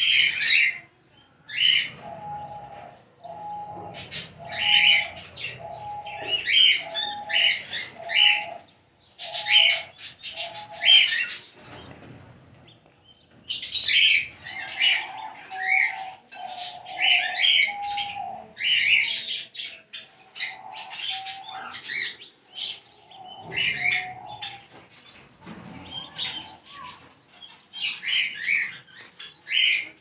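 A flock of lovebirds chirping, sharp high chirps in quick clusters throughout. Beneath them a lower, steadier note repeats about once a second for roughly the first ten seconds, then returns in longer, uneven phrases.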